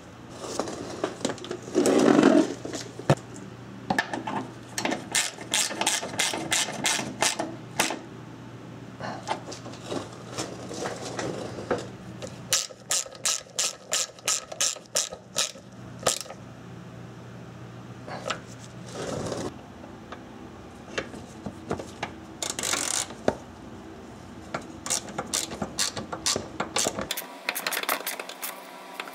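Hand ratchet with a socket extension clicking in quick, even runs as bolts are snugged up, stopping and starting several times, with a louder knock of tools about two seconds in.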